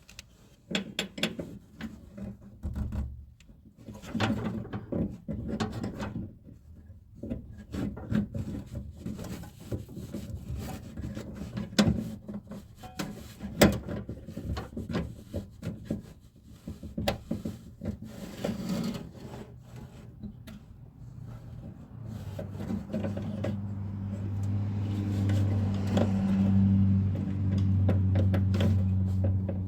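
Door handle and lock hardware being worked into a car door by hand: irregular clicks, taps and scraping. From about two-thirds of the way in, a steady low hum comes up underneath and grows louder.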